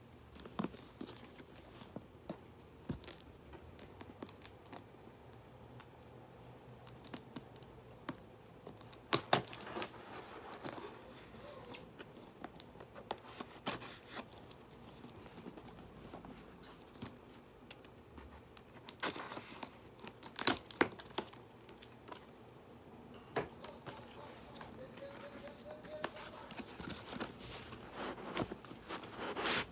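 Cardboard shipping box being opened by hand: tape and cardboard tearing and rustling, broken by scattered sharp snaps and scrapes, the loudest about a third of the way in and again about two-thirds in.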